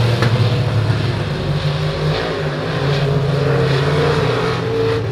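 Dirt-track race cars running laps around the oval, their engines making a steady drone whose pitch rises and falls slightly as they go.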